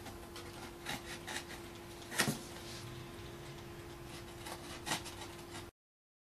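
Faint scraping and rubbing from cutting into the foam wing by hand, with a few light clicks, the most prominent about two seconds in, over a steady low hum. The sound cuts off abruptly near the end.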